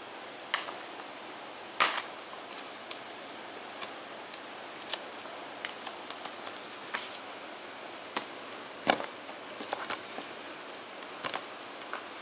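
Hands handling a plastic Blu-ray keep case and its paper insert: scattered clicks, taps and light rustles as the case is opened and the insert is pulled out, the sharpest clicks about two seconds in and again about nine seconds in.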